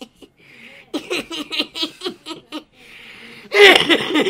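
A man laughing hard in rapid repeated bursts, with the loudest burst of laughter near the end.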